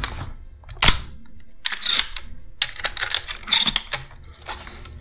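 Semi-automatic 12-gauge shotgun's action being worked by hand: one sharp metallic clack about a second in, then a run of smaller clicks and rattles. This is the bolt-release button being bumped so that a second shell comes off the magazine tube, causing a double feed.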